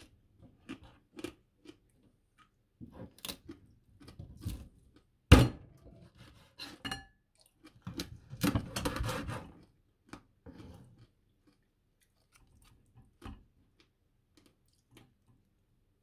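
Kitchen knife crunching through the crisp crackling skin of oven-roasted pork belly on a wooden cutting board, in a series of short crackles and taps. A sharp knock comes about five seconds in, and a longer crunching stretch follows about eight seconds in.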